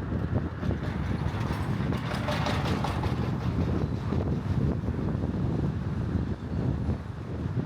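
Wind buffeting the microphone over a steady low rumble, with a louder passing hiss about two to three seconds in.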